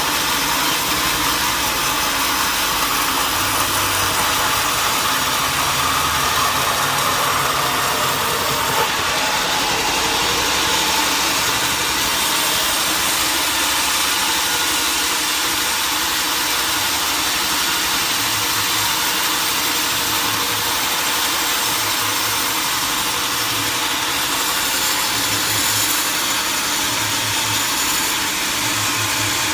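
Sawmill machinery running steadily, an even, unbroken mechanical noise.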